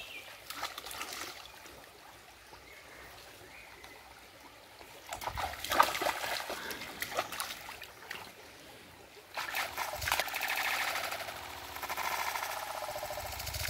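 A dog running through a shallow stream, its legs splashing the water in bursts, with the stream's trickle between. From about nine seconds in, the splashing plays slowed down and drawn out.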